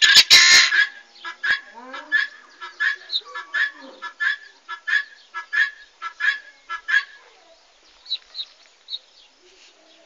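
Guineafowl calling. A fast rattle of calls at the start is followed by a run of repeated call notes, about two a second, that stops around seven seconds in. A few thin high chirps come near the end.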